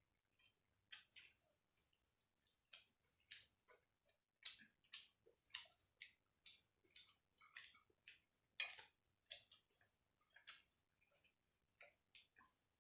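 Mouth sounds of people eating a meal of rice and curry: soft, irregular smacking and chewing clicks, two or three a second.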